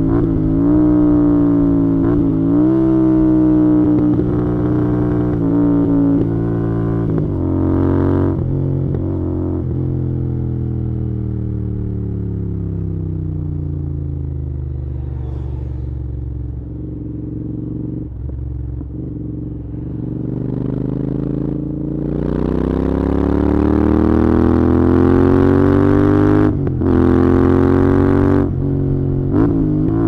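Royal Enfield Interceptor 650's 648 cc parallel-twin engine under way, heard onboard with wind noise. It runs at steady high revs at first, then its note drops slowly over about twelve seconds as the bike slows, and climbs again from about twenty seconds in as it accelerates, with brief breaks in the note near the end.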